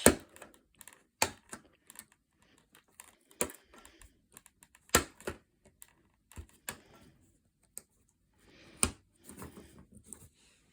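Irregular sharp clicks and taps of small plastic model-kit parts being handled and set down on a work surface, a handful louder than the rest.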